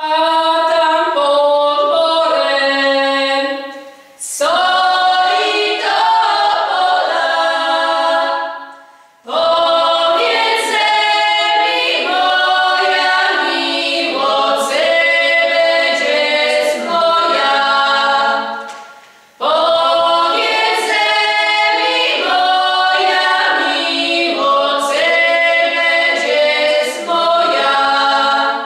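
Women's folk singing group singing a cappella in several voices, in long phrases with short pauses between them.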